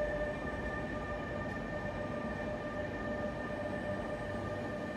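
NS intercity coaches rolling past along a platform in an underground station: a steady rumble of wheels on rail, overlaid by a constant high hum of a few steady tones.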